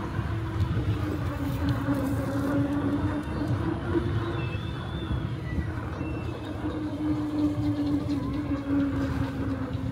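Vehicle noise: a steady hum whose pitch wavers slowly, over a constant low road and wind rumble.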